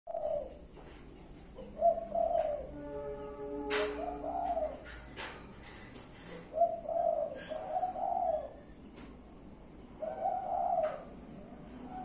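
Caged spotted doves (tekukur) cooing, low rounded coo phrases repeated every few seconds. Sharp clicks fall between the phrases, and a brief held tone sounds a few seconds in.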